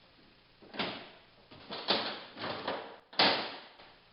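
Five or six sharp knocks and clacks of tailgate latch and catch hardware being worked against the fiberglass truck bed, each dying away quickly, the loudest near the end.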